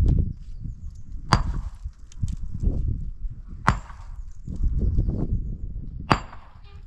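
Three sharp strikes about two and a half seconds apart, each with a short ringing tail, over low rumbling and knocking.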